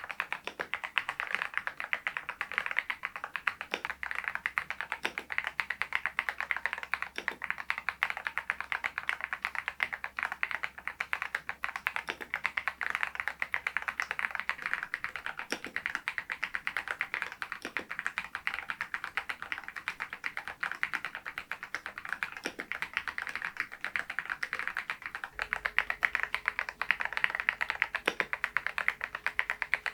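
Continuous fast typing on an RK R99 mechanical keyboard with its stock cream switches: a dense patter of key clicks, with a deeper knock every few seconds among them. The strokes get a little louder in the last few seconds.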